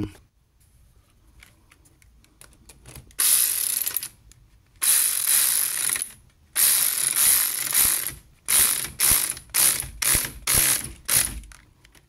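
Socket ratchet wrench clicking as it undoes the nut on a car battery's positive terminal stud. Three runs of about a second each, then about seven short, quicker strokes.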